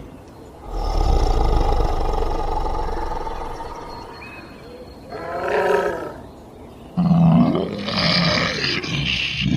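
Monster sound effects: a long low growl that fades away over about three seconds, a short pitched snarl a little past the middle, then a loud roar with rising and falling pitch near the end.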